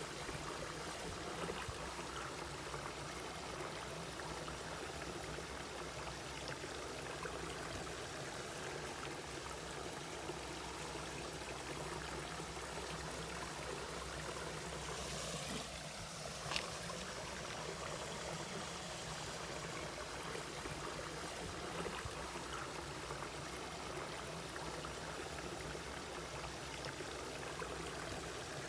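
Mountain valley stream flowing steadily over rocks, an even rush of water. A single sharp tick stands out a little past the middle.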